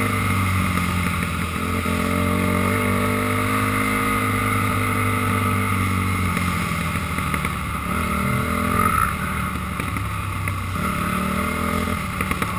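Motorcycle engine running under way, its pitch rising and falling several times as the rider works the throttle.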